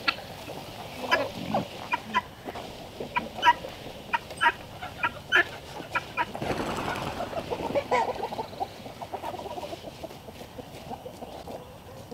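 Poultry clucking in short, sharp calls repeated through the first two thirds of the stretch. About halfway through comes a stretch of rattling and scraping as a wheeled metal-panel livestock pen is pushed across the grass.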